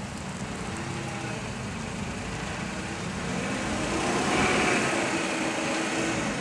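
Forklift engine running, revving up about three seconds in and staying louder as the machine is worked.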